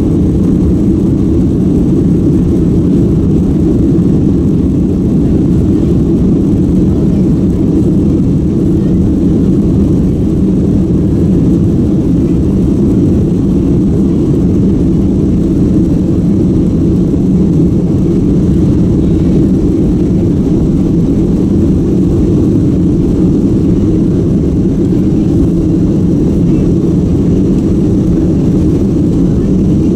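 Boeing 767 jet engines running steadily at high takeoff power, heard from inside the cabin over the wing as a loud, even, deep roar with no change in pitch.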